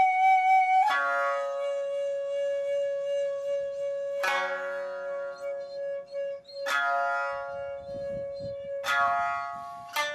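Nagauta music on traditional Japanese instruments. Four sharp plucked-string strikes come every two to three seconds, over a long held pitched note that steps down in pitch about a second in.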